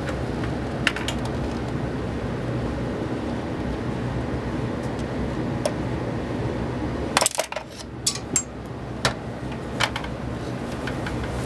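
Small sharp clicks and taps of a screwdriver against the sensor's plastic housing as it is handled and screwed together: a couple about a second in, then a cluster about seven to ten seconds in, over a steady low hum and hiss.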